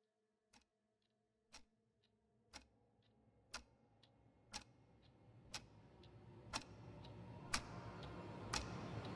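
A clock ticking once a second, with fainter ticks between the main beats early on, over a low rumble that swells steadily louder from a few seconds in.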